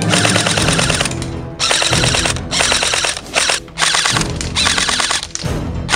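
Airsoft rifle firing in rapid full-auto bursts: about six short strings of fast shots with brief pauses between them.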